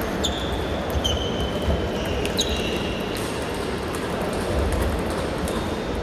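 Table tennis hall ambience: scattered clicks of celluloid ping-pong balls hitting bats and tables, over a steady background murmur of the hall.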